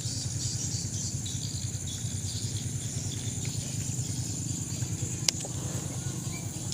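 Insects calling in a pulsing chorus over a steady low rumble, with one sharp click about five seconds in.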